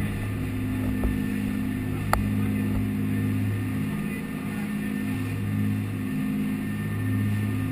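Dive boat's engines running steadily at cruising speed, heard as a constant low hum inside the cabin, with a light click about two seconds in.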